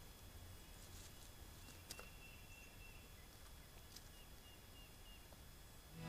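Near silence: faint outdoor ambience with a few soft ticks and, in the middle, a faint run of short, high chirping notes.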